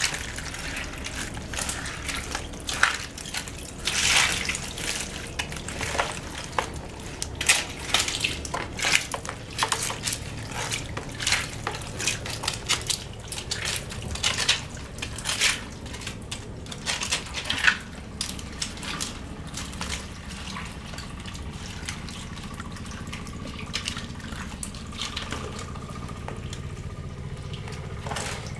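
Splashing and slapping in shallow muddy water as hands scoop up stranded catfish and small fish, with irregular sharp splashes, busiest in the first two-thirds and thinning out near the end.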